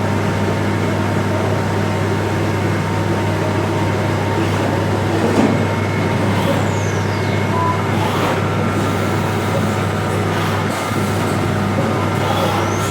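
Heckert CWK 400 D horizontal machining centre running under power: a loud, steady machine hum with a few clicks, and a high whine that falls in pitch about halfway through.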